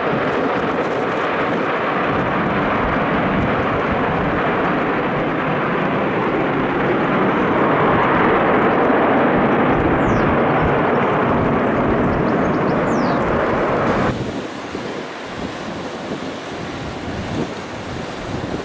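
Steady jet engine noise of a taxiing wide-body airliner. About 14 seconds in, it cuts off abruptly to quieter, gusty wind noise on the microphone.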